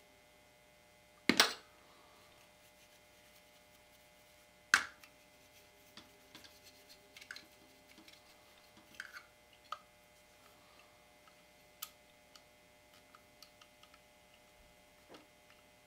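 Sharp metal clicks and light taps from a Winchester Model 1903 rifle's trigger group being worked with a steel punch during reassembly: a loud double click about a second and a half in, another loud click near five seconds, then scattered fainter ticks.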